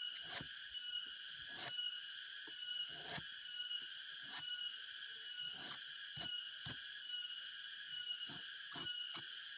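A machete blade knocking and scraping against the flower stalk of an aren sugar palm: about a dozen short, irregularly spaced strokes. Under it runs a steady, high-pitched chorus of insects.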